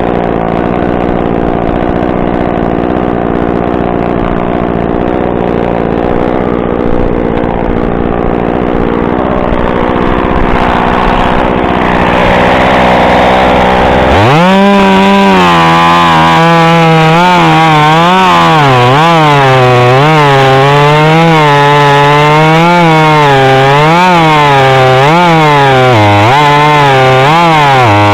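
Echo CS-2511T top-handle two-stroke chainsaw idling, then throttled up to full revs about halfway through. At full revs the engine speed repeatedly dips and recovers.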